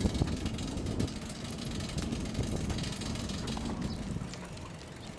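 Bicycle rolling along the road with wind buffeting the microphone: a steady low rumble with scattered small clicks and rattles.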